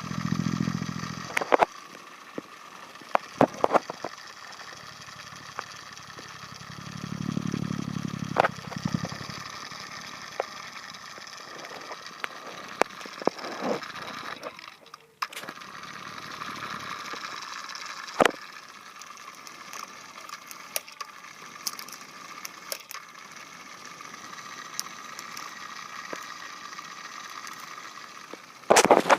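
Small battery-powered DC motor of a homemade mini ceiling fan, salvaged from a toy top spinner, running with a steady whine. Scattered clicks and two brief low rumbles, one at the start and one about seven seconds in, sound over it.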